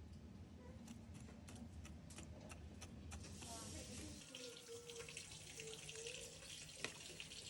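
Tap water running into a sink, coming on about three seconds in, with a faint low hum underneath that stops about a second later.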